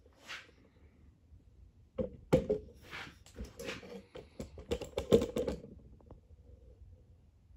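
A run of sharp clicks and light knocks, bunched between about two and five and a half seconds in, with a few fainter ticks around them.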